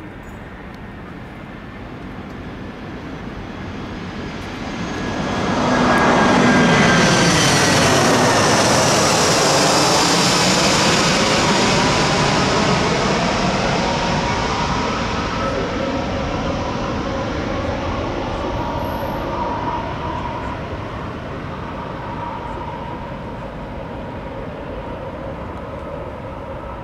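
Airbus A319 airliner on final approach flying low overhead: the jet noise builds, peaks about six seconds in with a whine dropping in pitch as it passes, then fades slowly as the plane descends away toward the runway.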